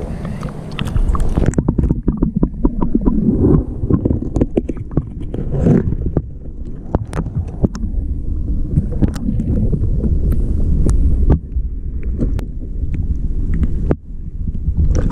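Rock-pool water heard through a camera dipped under the surface: a muffled low rumble and slosh with scattered clicks and knocks. The sound dulls about a second and a half in as the camera goes under.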